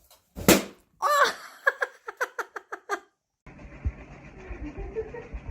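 A sudden loud thump, then a person laughing in quick repeated bursts for about two seconds. After an abrupt cut, low room noise with a few soft knocks.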